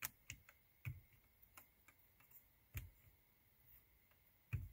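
Faint clicks of a finger pressing the push buttons on a 2011–2014 Ford Mustang's Shaker radio faceplate: about five irregularly spaced presses, the loudest near the end.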